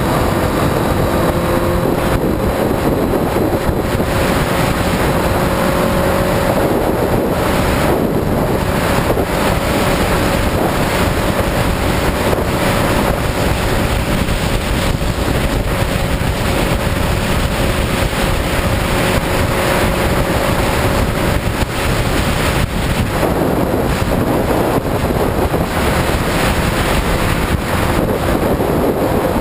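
Heavy wind rushing over the camera microphone on a moving Honda CBR motorcycle, with the engine running steadily underneath at cruising speed.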